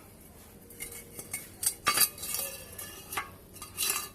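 Pieces of salvaged steel clinking and knocking together as they are handled and slotted into one another. There is a string of sharp metal clinks, loudest about two seconds in and again near the end.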